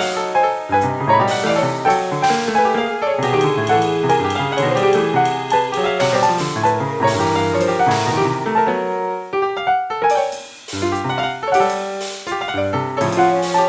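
Piano playing a dense free-jazz original piece, many notes and chords struck across low and middle registers, with a brief lull about ten seconds in.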